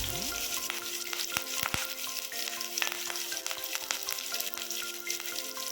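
Green chilli and curry leaves sizzling in hot sesame oil with chopped onions in a kadai: a steady hiss with many short sharp crackles and pops.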